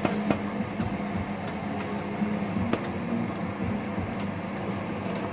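Chicken afritada simmering in tomato sauce in a pan on a gas stove: scattered small pops and blips from the bubbling sauce over a steady low hum.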